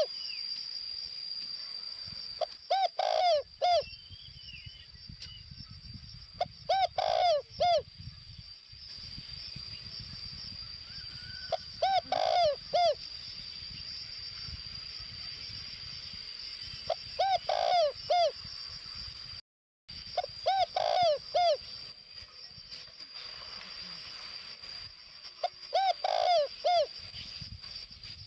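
Spotted dove cooing: a decoy male's call of short phrases of several coo notes, repeated about every four to five seconds, six times.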